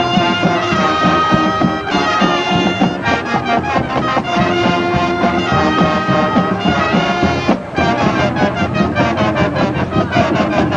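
High school marching band playing on the field: brass chords held over steady drumline strokes, with a very short break about three-quarters of the way through before the band comes back in.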